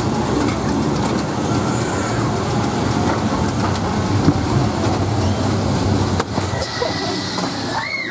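Ghost-train car rattling and rumbling along its track, with a brief high squeal near the end.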